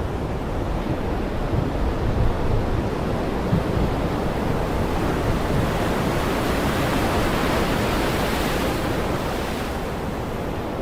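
Heavy rain pouring steadily. It swells louder and hissier a little past the middle, then eases off.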